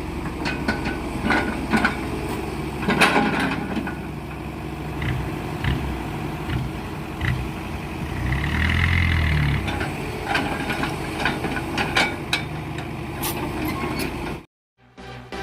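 Heavy diesel machinery running steadily, with many sharp knocks and clanks over it; the engine swells louder about eight seconds in. Near the end the sound cuts off abruptly and electronic music begins.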